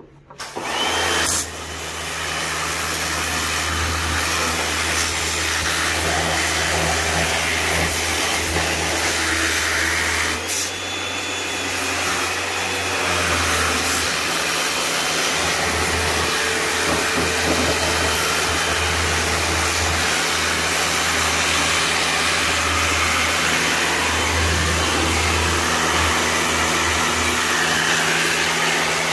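Pressure washer running: a steady motor-and-pump hum under the loud hiss of the water jet blasting grime off an engine. It starts up just after the beginning, and the jet dips briefly about ten seconds in.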